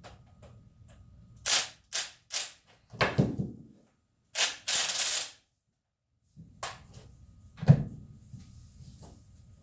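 Impact wrench firing in about six short bursts to break loose the nozzle nut on a 6.0 Powerstroke diesel fuel injector held in a vise, with a single knock near the end.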